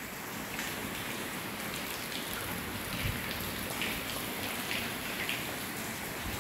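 Very light rain falling: a steady soft hiss with faint scattered drips, and one soft low thump about three seconds in.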